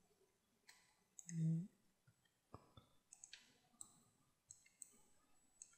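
Quiet, scattered clicks of a computer mouse and keyboard, several sharp single clicks a second or so apart. About a second and a half in comes a brief low hum from a person's voice, the loudest sound here.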